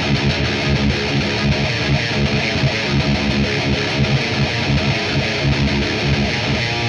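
Distorted high-gain electric guitar riffing through a Mesa Triple Rectifier amp and a 4x12 cabinet loaded with Celestion V30s, in a fast steady rhythm on low notes.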